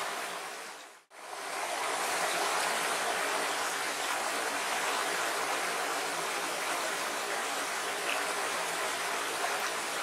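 Water of a small, shallow, rocky stream rushing and rippling steadily. It fades out to silence briefly about a second in, then comes back.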